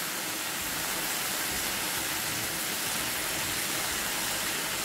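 Drumstick leaves frying in a pan of ghee, sizzling with a steady hiss.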